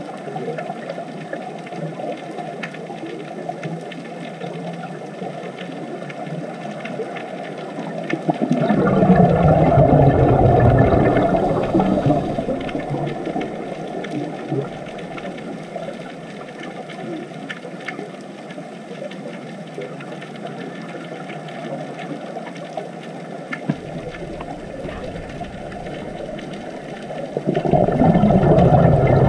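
Underwater water noise: a steady low rush, swelling twice into louder, deeper bubbling and churning, about nine seconds in and again near the end.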